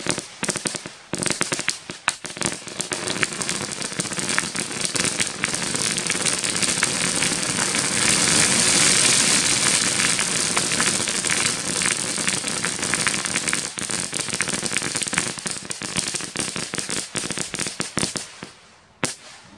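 Consumer firework going off with dense, rapid crackling of many small pops. It builds to its loudest near the middle, thins out near the end, and finishes with one last sharp pop just before it stops.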